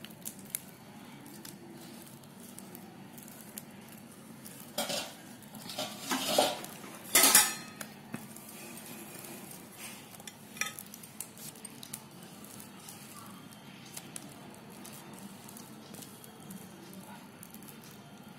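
A hand mixing thick wheat-flour paniyaram batter in a stainless steel bowl: soft stirring and scraping against the steel, with a few louder clatters of the bowl about five to seven seconds in and once more near eleven seconds.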